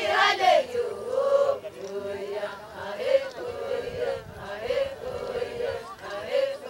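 Group chanting: several voices singing short phrases together on held notes.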